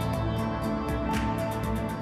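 Background music of sustained, soft notes over a steady bass, with quick light ticks running through it.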